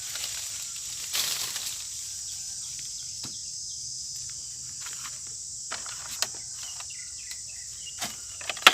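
Steady high-pitched drone of insects, with a few rustles and short sharp knocks, the loudest knock near the end.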